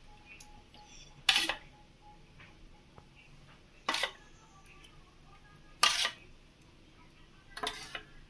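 A spatula scraping and knocking thick marinade out of a steel bowl: four short, sharp scrapes about two seconds apart, with quiet between them.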